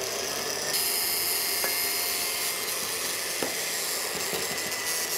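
Countertop blender motor running steadily, puréeing pork liver, onion and herbs with cream; the whir grows a little louder and brighter about a second in.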